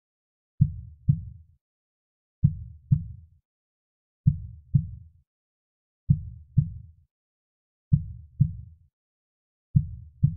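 Slow, soft heartbeat: low double thuds (lub-dub) about every two seconds, six beats in all, with silence between them.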